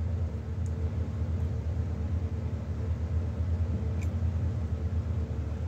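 Steady low machine hum with a few steady tones, and a faint click about four seconds in.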